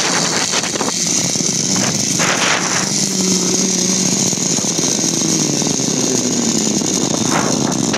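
Zip line trolley pulleys whirring along the steel cable, a steady rushing buzz mixed with wind on the phone's microphone, with a low tone that slides about as the rider slows on the approach.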